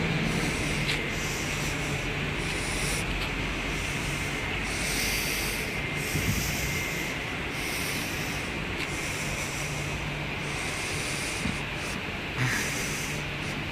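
Polregio EN57ALc electric multiple unit standing at the platform after braking to a stop: a steady low electrical hum over a broad hiss, with a short knock near the end.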